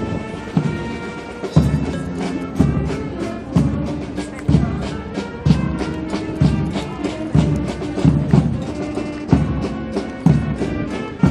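Music with a steady drum beat, about one strong low hit a second, under sustained melodic tones.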